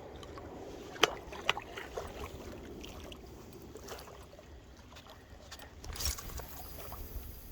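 Steady riverside noise of wind and moving water, with a few sharp clicks in the first couple of seconds and a brief rustling hiss about six seconds in.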